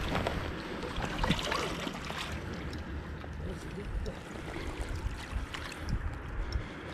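Wels catfish splashing and thrashing in shallow water at the bank's edge as it is played in, a few splashes in the first two seconds or so, over a steady low rumble of wind on the microphone.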